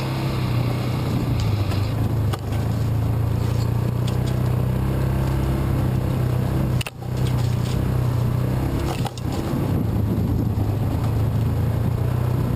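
Engine of a Yamaha Rhino side-by-side utility vehicle running steadily as it drives along a rough trail, with brief drops in sound about two, seven and nine seconds in.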